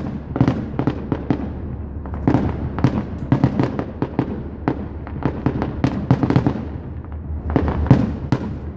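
Aerial firework shells bursting in a finale barrage: sharp bangs several a second in irregular succession, with a brief lull about seven seconds in before they pick up again.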